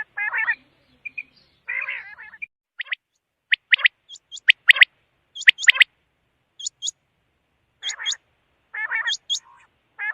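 Quail calling: short, sharp high notes in quick pairs, mixed with lower, buzzy calls, repeated about every second.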